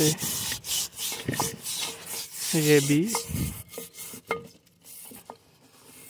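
Scrubbing brush rasping against the inside of a terracotta water bowl in quick repeated strokes, scouring off a coat of green algae. The strokes stop about four and a half seconds in.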